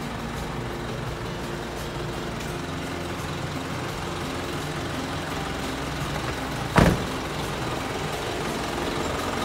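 Isuzu Forward truck's diesel engine idling steadily, with one sharp thump about two-thirds of the way through.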